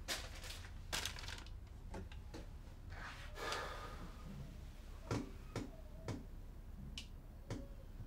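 Handling noises at a kitchen cupboard: a dozen or so quiet clicks and knocks, with a short rustle about three and a half seconds in, over a low steady hum.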